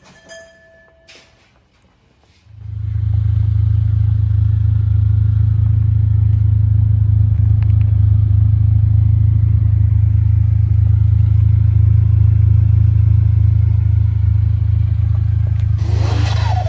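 Honda Civic EG hatchback driving at a steady pace, a loud, even low drone of engine and road noise that starts about two and a half seconds in. A short rising whoosh comes just before the end.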